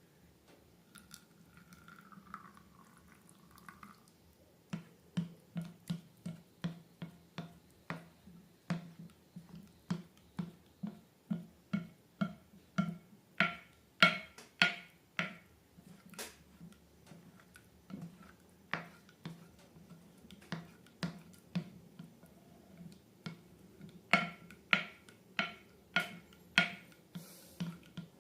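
Sticky slime being pressed and pulled by hand, giving a steady run of short wet clicking pops about two a second, with a faint squeak before the pops begin.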